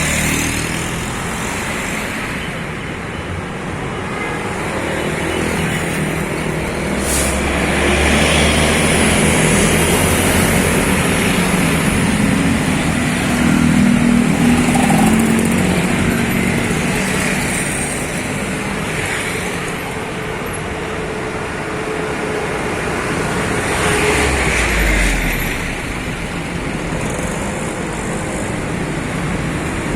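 Road traffic passing on a busy highway, with heavy vehicles such as buses going by. The engine and tyre noise swells as vehicles pass, loudest in the middle and again briefly near the end.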